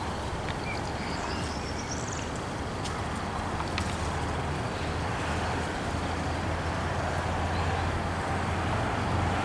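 ATR220 Swing diesel multiple unit approaching: a steady low engine drone, slowly growing louder, with a few faint clicks.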